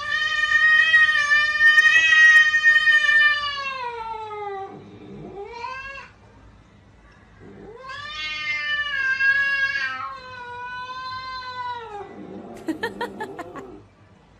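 A cat yowling: two long, drawn-out calls of several seconds each, with a short rising cry between them.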